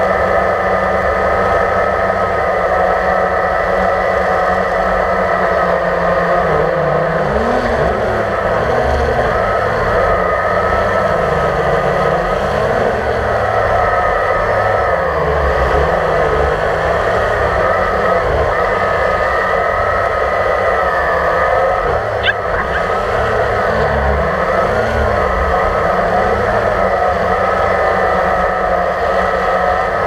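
Drone's electric motors and propellers whirring steadily, heard through the camera mounted on it; the pitch wavers up and down as it manoeuvres. A single sharp click about 22 seconds in.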